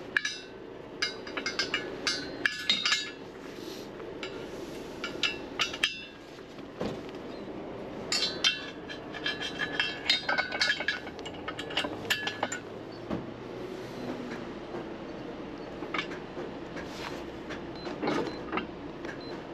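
Steel locking pins and tools clinking and knocking against the steel cross-arms of a tow truck's underlift as the pins are fitted and secured, in irregular clusters of metallic clicks and rattles.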